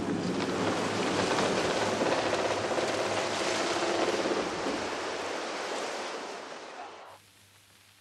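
A loud, steady rushing noise, like surf or rushing water. It fades over a few seconds and gives way to faint hiss about seven seconds in.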